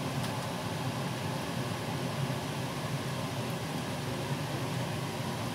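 Steady low hum with a hiss over it, a fan-like kitchen background noise with no distinct knocks or clatter.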